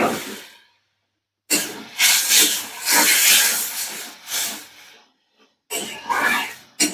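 Bursts of hissing noise, broken by abrupt silences near the start and about two-thirds of the way through.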